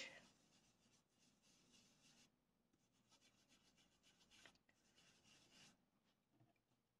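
Faint rubbing of an ink blending brush dabbed and swirled over cardstock through a plastic stencil, in two short stretches, with a light tick partway through.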